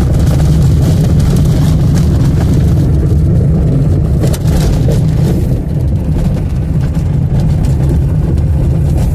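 Car driving on a dirt road, heard from inside the cabin: a steady low rumble of engine and tyres, with a few faint ticks.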